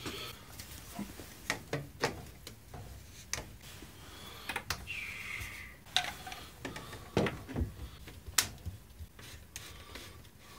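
White PVC drain pipe and fittings being handled and pushed together for a dry fit: scattered light plastic clicks and knocks, with a brief rubbing scrape about five seconds in.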